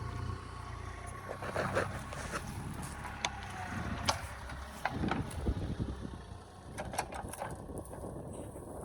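Mini excavator engine running steadily, with scattered knocks and clanks from the machine's digging work.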